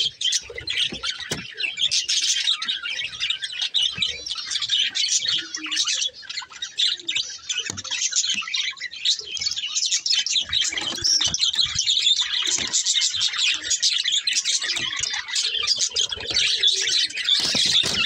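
A flock of budgerigars chirping and chattering all at once, a dense, unbroken high twittering.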